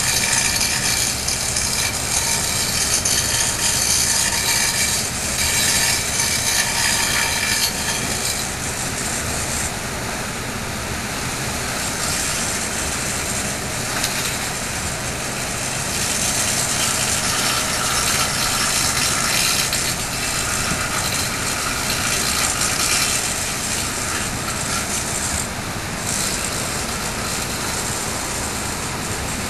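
Hopper dredger's engines and pumps running steadily under a rushing of water, with a whine in the first eight seconds. After that the sound changes to an even rush as the dredger pumps sand and seawater out of its bow nozzle in an arcing jet (rainbowing) that pours into the water.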